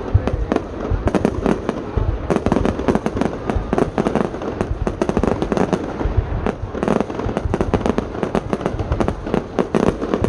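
Fireworks display going off: a dense, continuous run of rapid bangs and pops, overlapping one another, with a low rumble underneath.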